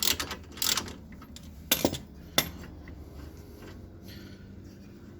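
A socket ratchet clicking in two short runs as a brake caliper bolt is loosened, then a few sharp metal clinks about two seconds in.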